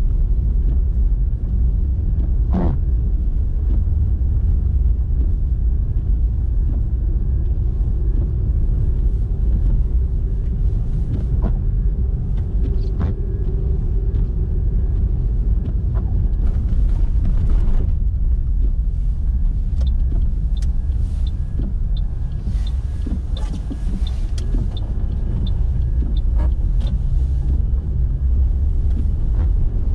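Car driving at speed: a steady, heavy low rumble of engine and tyres on the road, with a faint hum coming and going and scattered small clicks and ticks.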